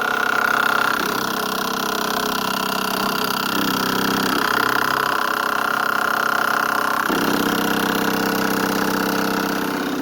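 El Camino's electric fuel pump running with the ignition on, engine not started: a loud, steady whine of several tones that shifts in pitch about a second, four seconds and seven seconds in. The noise comes from the pump mounted metal to metal, and the owner calls it crazy loud.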